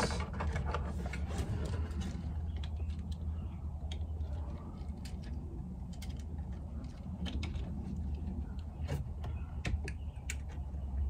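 Plastic wiring-harness connectors and a bundle of loose wires being handled and fitted together: scattered light clicks and rustling, over a steady low hum.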